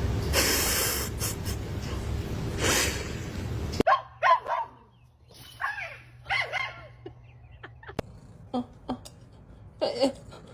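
A loud rushing noise for the first four seconds that cuts off suddenly. Then a dog gives a series of short barks and whines, several times.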